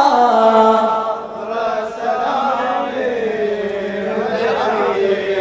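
Chanting of a latmiyya, a Shia mourning lament: a man's voice holding long, slowly gliding melodic notes.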